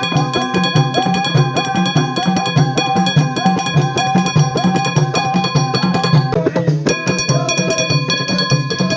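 Background music with drums keeping a steady beat under a fast run of repeated melody notes, with a short break about six and a half seconds in.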